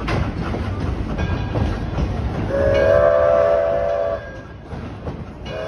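Edison No.1, a 4-4-0 steam locomotive, running with a steady rumble, then blowing its steam whistle: a long blast starting about halfway through, a short break, and a second blast near the end.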